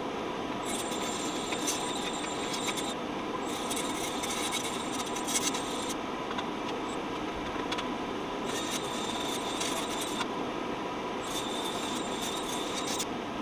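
Masking tape being pulled off the roll and laid along aluminium wing spar tubes, in four scratchy, faintly squealing stretches of two to three seconds each, over a steady background hum.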